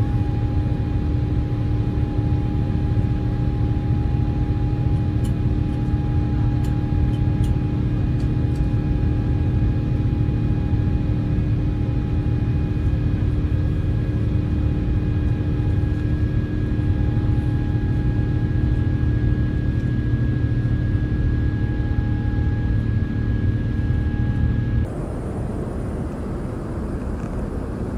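Airbus A350-900 cabin noise from its Rolls-Royce Trent XWB engines and airflow: a loud, steady low rumble with a few steady humming tones. About 25 seconds in it cuts to a quieter, smoother cabin hiss.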